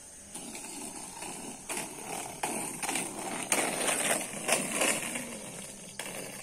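Roller-skate wheels rolling and grinding over rough asphalt as a skater pushes off and glides away, with irregular clattering knocks. The sound starts about half a second in.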